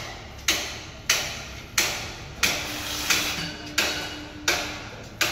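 Regular hammer blows on steel scaffolding, one sharp metallic knock about every two-thirds of a second, about eight in all. Each strike leaves the struck steel ringing.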